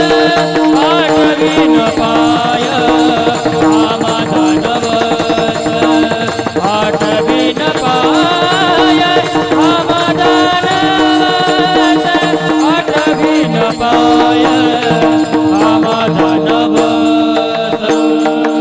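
Devotional kirtan music: a steady sustained drone with a wavering melodic line gliding over it, and light hand percussion.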